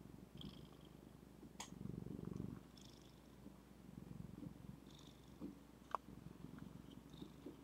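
Domestic cat purring close to the microphone, a faint steady rumble that swells about two seconds in. Two sharp clicks cut through it, the louder one near the end.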